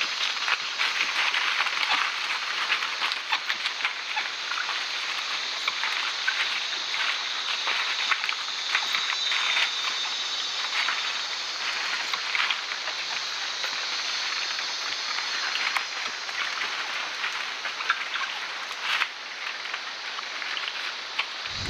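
White-nosed coatis rustling and crackling through dry leaf litter, many small clicks and scuffs over a steady high insect hiss of the rainforest.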